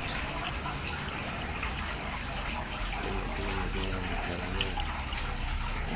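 Water running steadily from a tap, rinsing dirt off the parts of a submersible pond pump.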